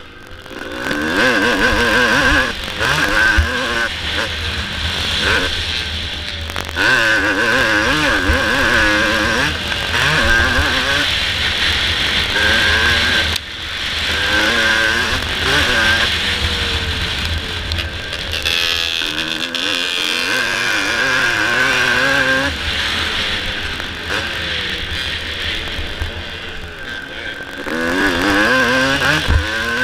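1984 Suzuki RM250's two-stroke single-cylinder engine under load on a motocross track, its pitch rising and falling over and over as the rider works the throttle and shifts. There are short backings-off, one sharp one about 13 seconds in.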